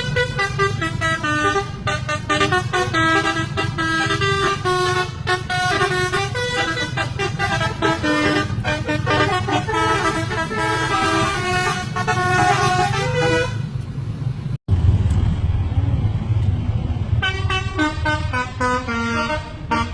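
Telolet musical air horns of two buses playing quick melodic tunes together over the low rumble of the bus engines. The tune stops a little past halfway, leaving only engine rumble for a few seconds, then the horns start up again near the end.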